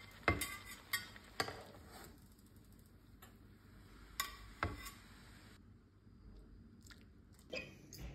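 Metal slotted spatula clinking against a frying pan and a ceramic plate as cooked chicken breasts are lifted out of the pan onto the plate: several separate sharp clinks.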